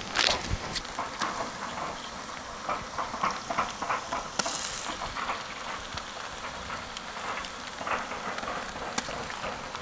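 Chopped onions frying in butter in a large pot: a steady sizzle full of scattered crackles.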